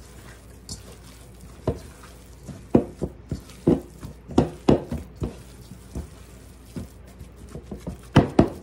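Hands kneading and squeezing ground beef in a stainless steel mixing bowl: a string of short, irregular squeezing and pressing sounds, about a dozen, with a louder pair near the end.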